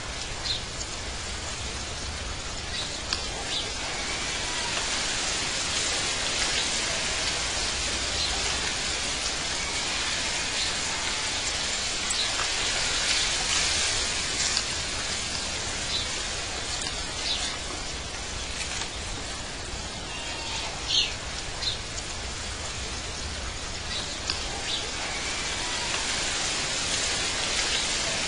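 Outdoor ambience: a steady hiss with short, high bird chirps every few seconds.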